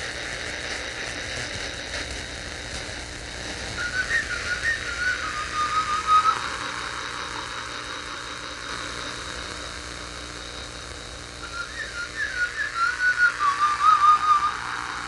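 A person whistling two short wavering phrases that drift downward in pitch, the first about four seconds in and the second near the end, over a steady background hiss.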